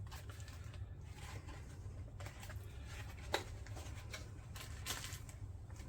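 Faint handling noises of plastic tool parts being turned over and fitted together: light rustles and small clicks, one sharper click about three seconds in, over a steady low hum.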